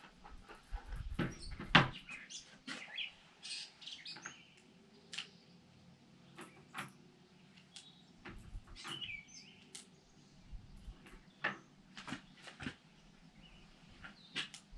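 Scattered small clicks and knocks of gear being handled at a shooting bench, with one sharper knock about two seconds in. A few bird chirps are mixed in.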